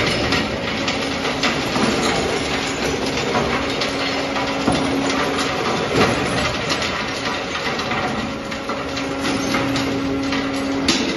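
McIntyre 1300 BOSS engine cracker crushing scrap engines, with broken metal pieces clattering and knocking continuously onto its conveyor over a steady machine hum.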